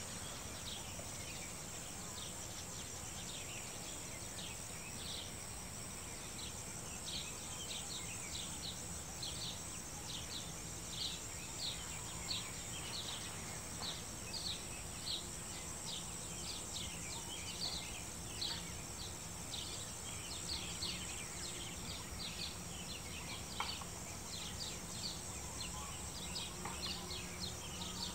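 A steady, high insect drone with many short, high bird calls coming several times a second, over a low steady background rumble.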